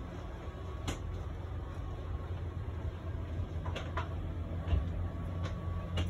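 Steady low hum inside an RV, with a few light clicks and knocks from movement through the cabin and one low thump near the end.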